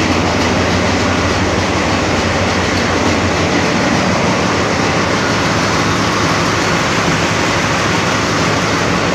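Loud, steady din of a ship's engine room with its engines and machinery running.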